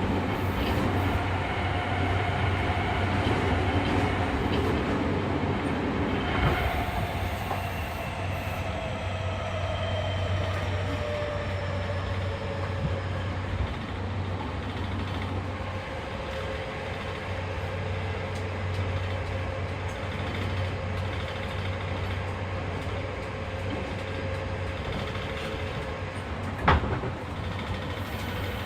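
Running sound of a refurbished Fukuoka City Subway 2000 series train with a Hitachi hybrid SiC inverter and WN drive, heard from on board. A motor and gear whine falls slowly in pitch as the train loses speed, over a steady low rumble. A sharp clack comes near the end.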